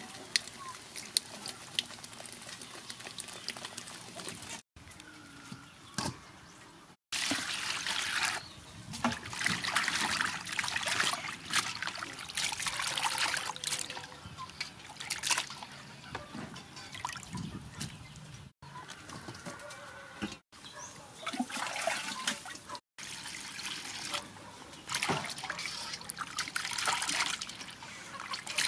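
Hands swishing and rubbing small octopuses in a metal bowl of water, with splashing and sloshing that come and go. At the start, cola is poured into an aluminium wok, running in a stream and fizzing.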